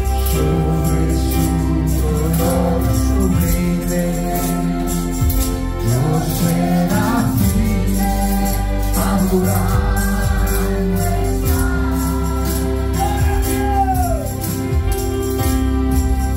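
Live Christian worship music: a woman singing lead over a keyboard's held chords and a steady percussion beat.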